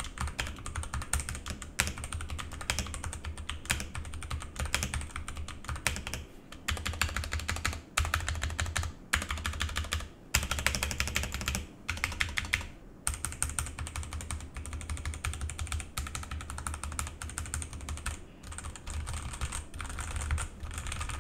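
Typing sound test on a Vortex VX5 Pro 60% mechanical keyboard with stock Outemu Brown tactile switches, aluminium plate and factory-lubed stabilizers: fast, continuous key clacking with a few brief pauses.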